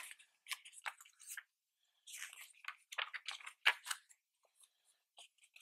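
Pages of an art book being turned by hand: faint, scattered paper rustles and flicks, thickest from about two to four seconds in.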